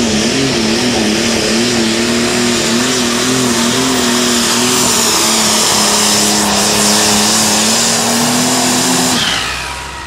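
International pulling tractor's engine at full throttle under the load of the weight-transfer sled, with a high whine over it. Its pitch wobbles up and down, then holds steady for the last few seconds before the engine is throttled back and drops away about nine seconds in, at the end of a full pull.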